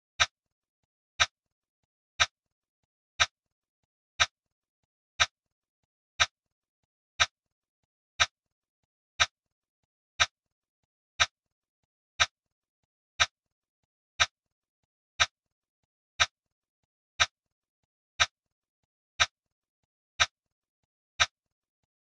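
Timer tick sound effect: one short, sharp click every second, evenly spaced, marking each second of the count.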